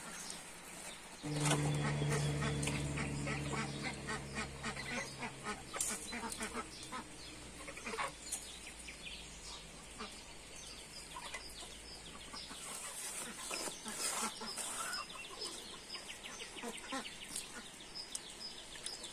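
Farmyard poultry calling, with many short repeated calls. About a second in, a steady low hum sets in and is the loudest sound, fading away over the next several seconds.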